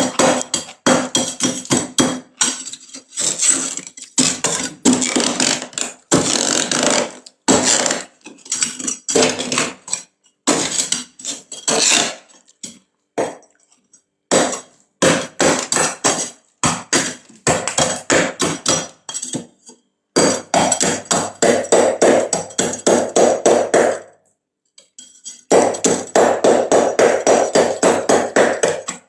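Freezer frost being scraped and chipped off with a tool in quick, rough strokes, coming in runs with short pauses and a gap of about a second and a half near the end.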